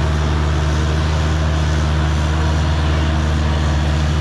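Kubota U55-4 mini excavator's diesel engine running steadily at constant speed with a deep, even hum, powering the flail mower attachment.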